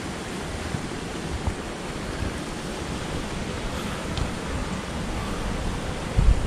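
Wind blowing over the microphone: a steady rushing with a low rumble, and heavier gusts buffeting it near the end.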